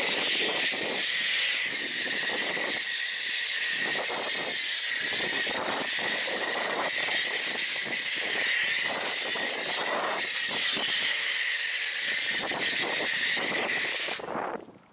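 Autoglym Polar Blaster foam cannon on a pressure washer spraying snow foam: a steady hiss that cuts off suddenly near the end.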